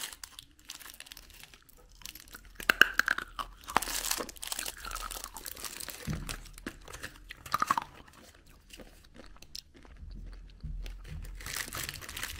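Close-up handling of a small plastic candy box and little candy pieces: scattered clicks, taps and crinkly crunches in short bursts, with quieter pauses between.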